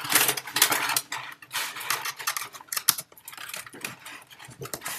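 Handling noise of hands fumbling at the back of a computer to plug in a USB cable: irregular rustles, knocks and clicks, busiest in the first second, with one sharp click a little before three seconds in.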